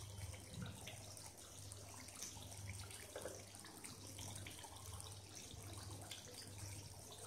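Faint bubbling of thick mutton curry gravy simmering in a kadai on a gas flame, with scattered small ticks and scrapes from a wooden spatula and a fork stirring in the pan, over a steady low hum and hiss.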